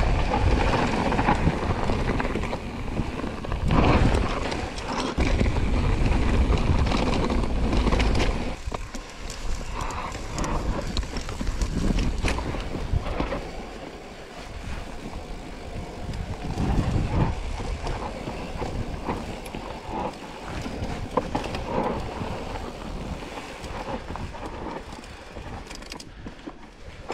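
Mountain bike riding down a rocky trail: tyres rolling over rock and gravel, with the bike knocking and rattling over bumps and wind noise on the microphone. It is louder and rougher for the first several seconds, then quieter.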